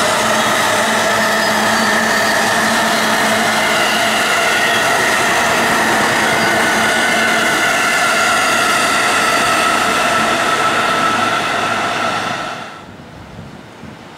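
JR Tokaido Line stainless-steel electric train passing close by at speed: loud wheel-on-rail running noise with a steady whine, one tone sinking slightly. It drops off sharply near the end.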